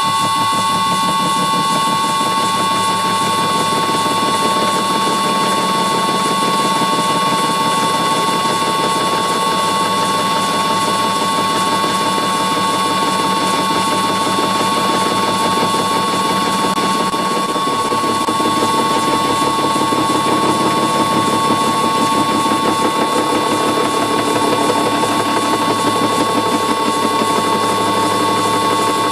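An 80 mm indexable-insert face mill turning in a vintage Karger lathe's spindle and milling across a metal block. It makes a steady whine of several pitches over an even rough cutting noise. This is a light final pass taken to improve the surface finish.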